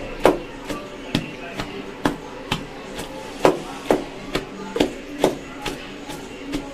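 Wooden pestle pounding boiled chana dal and chicken into a paste in a wooden mortar (kundi sota), a steady rhythm of about two strokes a second.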